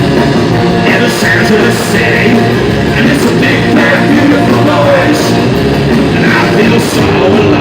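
Live punk rock band playing loudly.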